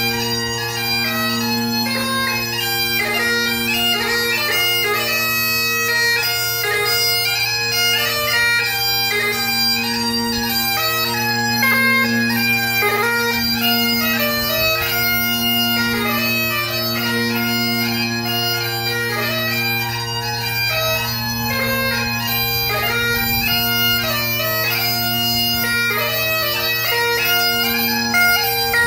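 Great Highland bagpipe played solo at a quick pace: the drones hold a steady low chord under the chanter's melody, which runs on without a break.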